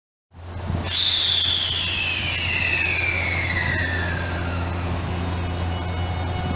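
Toshiba GTO-VVVF inverter traction motors of a JR Central 383 series electric train pulling away from a stop, heard from inside the car. After a brief silence the electric whine comes in, with high tones sliding steadily down in pitch over a steady low hum.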